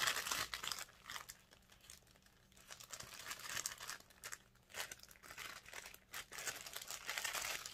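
Packaging crinkling and rustling in irregular fits as hands rummage through a subscription box, with a quieter lull about two seconds in.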